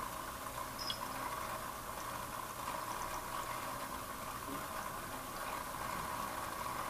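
Aquarium water bubbling steadily, with a faint low hum underneath.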